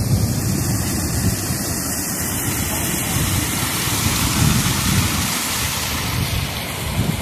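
Steady roar of rough surf mixed with water rushing down a concrete outflow channel, with wind rumbling on the microphone. The hiss of the pouring water grows from about halfway through.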